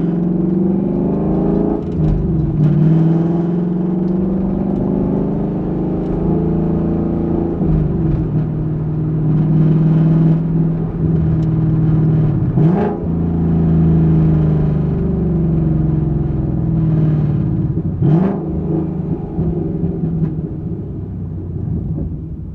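Exhaust of a 2021 Ford Mustang GT's 5.0-litre V8 under way, recorded from the trunk. The engine note holds steady, then dips and swings back up in pitch about four times as it changes gears, and it eases off near the end.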